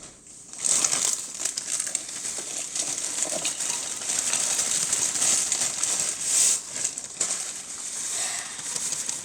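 A bag of graham cracker crumbs crinkling and rustling as the crumbs are emptied out of it.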